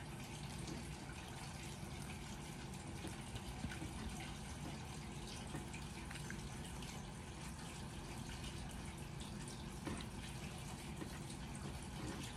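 Young rhesus macaque chewing a hard biscuit close to the microphone: small irregular crunches over a steady background hiss.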